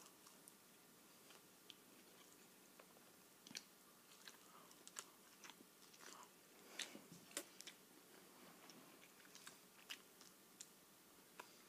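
Faint chewing and biting as a person eats pizza pieces, with irregular soft mouth clicks and smacks.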